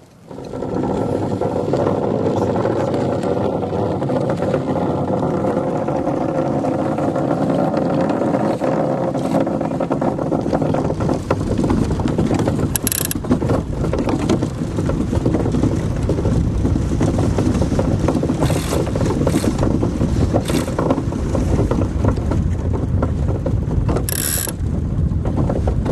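Ice boat's steel runners running fast over rough lake ice: a loud, steady, grainy rumble and chatter that starts suddenly, with two brief high hisses about halfway and near the end.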